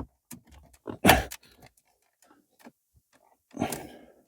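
Fiat 500 plastic dashboard trim being worked loose by hand: scattered clicks and knocks of the clips and panel, a sharper knock about a second in, and a short scraping rustle near the end.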